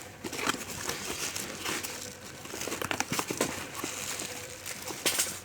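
Plastic parcel packaging being handled and crinkled by hand, with irregular crackles and a sharper crackle near the end.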